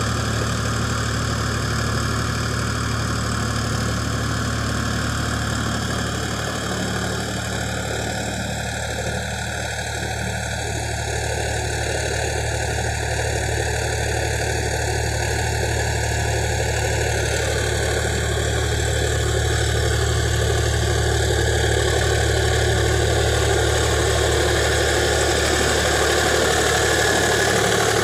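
Sonalika DI-47 RX tractor's diesel engine running steadily under load while driving a rotary tiller through dry soil. It gets somewhat louder in the last third as it comes close.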